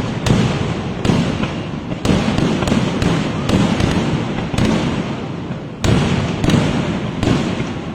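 Kerala temple-festival fireworks (vedikkettu) going off in a dense barrage: a loud bang every half second to a second, with a continuous rolling rumble and echo between the blasts.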